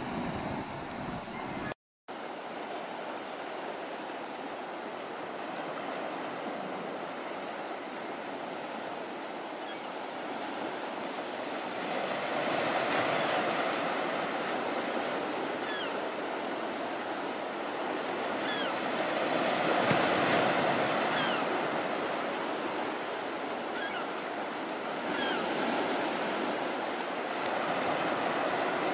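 Sea surf washing steadily, swelling and easing about three times, with a few short high bird calls over it. The sound drops out briefly about two seconds in.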